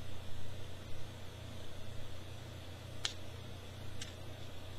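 Plastic parts of a deluxe-class Transformers Ratchet action figure being handled and twisted, giving two short sharp clicks about a second apart near the end, over a steady low hum.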